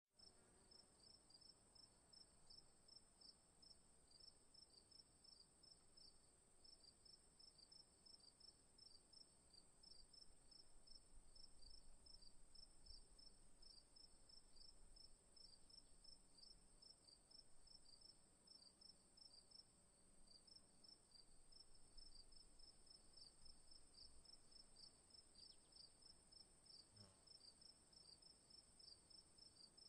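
Faint insect chorus, like crickets: a steady high drone with a rapid, even chirping pulse running beneath it.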